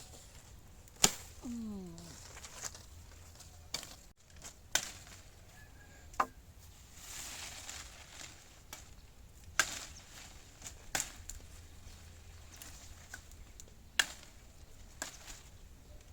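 A series of sharp, separate chopping strikes at uneven intervals, about eight of them, each a second or more apart.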